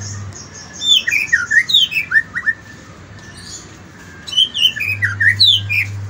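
White-rumped shama (murai batu) singing: two bursts of quick, clear whistled notes, many sliding downward, about a second in and again about four and a half seconds in.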